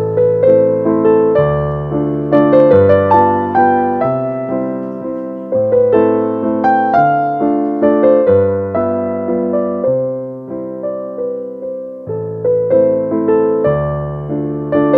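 Background piano music: a steady flow of notes and chords, each struck and left to fade.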